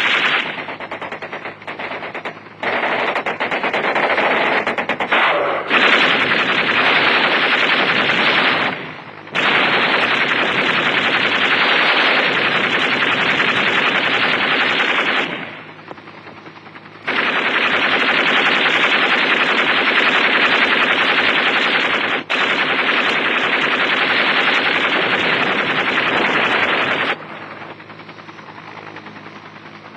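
Helicopter gunship's machine guns firing long, rapid bursts of several seconds each, with short breaks about one, nine and sixteen seconds in. The firing stops a few seconds before the end, leaving the helicopter's lower steady drone.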